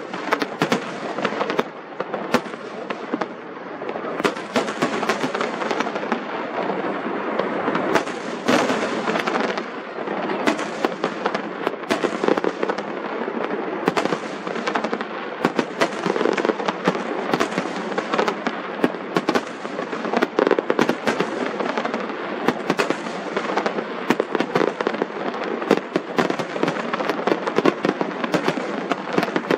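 Aerial fireworks bursting in quick succession: many sharp bangs a second over a continuous crackle, with no let-up.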